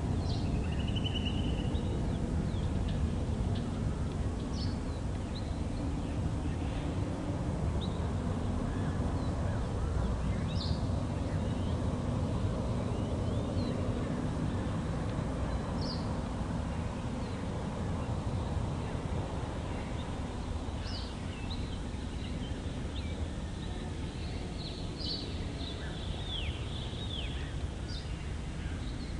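Distant jet airliner giving a steady low rumble that slowly fades, with short bird chirps and the odd trill scattered throughout.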